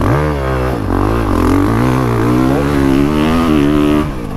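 Honda CRF450 motocross bike's single-cylinder four-stroke engine revving under throttle, its pitch jumping up at the start, wavering, then climbing steadily. It eases off briefly near the end.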